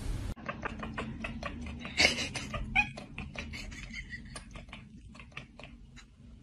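A cat at a window chattering: a rapid run of short clicks with a couple of brief chirping meows, fading toward the end.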